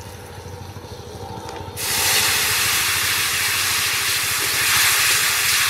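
Watery mango-sour (amsi) mixture hitting hot oil and spices in a karai: about two seconds in, a loud, steady hiss of sizzling and steam starts up and keeps on.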